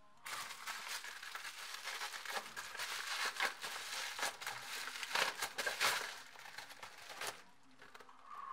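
Plastic mailer and bubble-wrap packaging crinkling and rustling as it is pulled off a box and crumpled in the hands, with a few louder crackles in the middle. It stops about seven seconds in.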